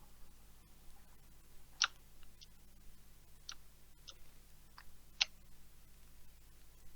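Pool balls clicking: a handful of short, sharp knocks, the loudest about two seconds in and another about five seconds in, with a few fainter ones between.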